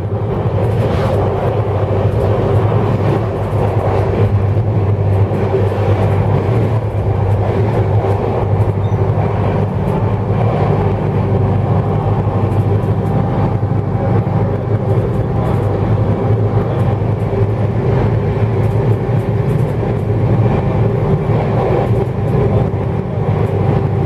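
Steady running noise of a Shatabdi Express passenger train heard from inside the coach: a deep, even hum with rumble from the wheels and track.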